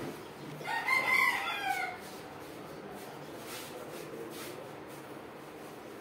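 A cat gives one wavering cry lasting about a second, starting just under a second in, as two cats scuffle.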